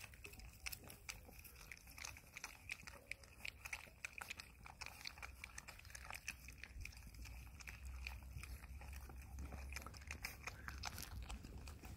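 A litter of one-month-old puppies lapping milk from one bowl: a faint, quick, irregular patter of small clicks and slurps from several tongues at once.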